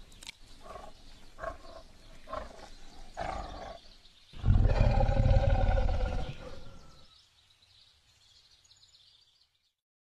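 A big cat calling: a run of short, rasping grunts about two a second, then about four seconds in a loud, deep roar that fades away over the next two or three seconds.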